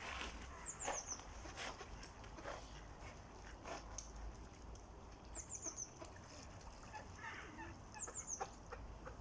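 A small bird calling three times, each call a quick run of about four high, falling notes. Scattered crunches, like boots on crisp snow, come between the calls.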